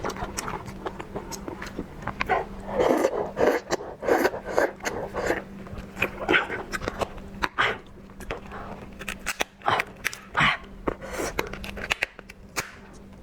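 Close-miked eating sounds: a person chewing raw lobster meat with a run of irregular wet mouth smacks and clicks.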